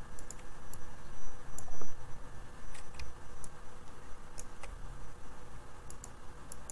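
Scattered clicks of a computer keyboard and mouse, a few every second, as keys and buttons are pressed.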